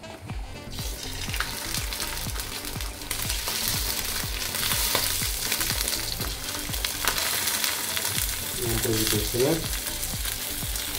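Trout sizzling in hot olive oil in a frying pan. The sizzle starts about a second in as the fish goes into the pan and grows louder after about three seconds.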